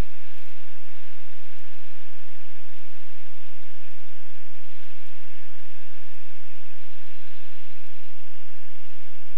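Loud, steady cockpit noise of a Scheibe SF-25 Falke motor glider in powered cruise: the engine and propeller run under an even rushing hiss of airflow, with an uneven low rumble beneath.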